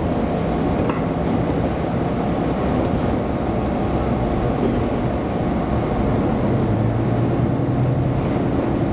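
Diesel railcar running along the line: a steady rumble of the train in motion with the low hum of its diesel engine, which grows stronger near the end.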